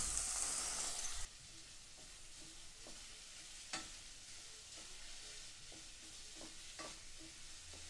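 Dry rice poured into butter sizzling in a pot, a loud hiss for about the first second, then a quieter sizzle as a wooden spatula stirs the grains, with a few scattered scrapes and taps.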